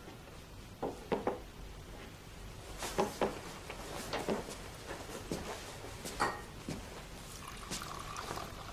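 Irregular light knocks and clicks, about a dozen, spaced unevenly.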